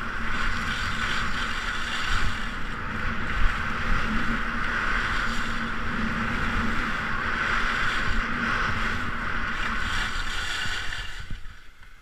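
Skis running fast over packed, groomed snow with wind rushing over the camera's microphone, a steady hiss and scrape that fades away in the last second as the skier slows to a stop.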